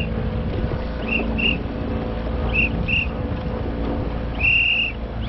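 Short, shrill whistle blasts in pairs, a pair about every second and a half, then one longer blast near the end. Under them runs a steady low rumble of wind on the microphone and the boat moving on the water.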